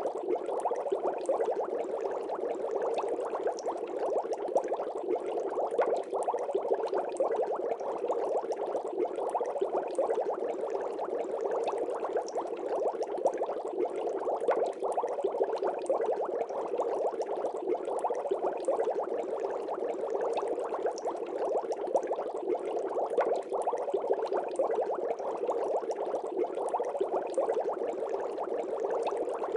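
Water bubbling steadily: a dense, unbroken run of small bubble pops.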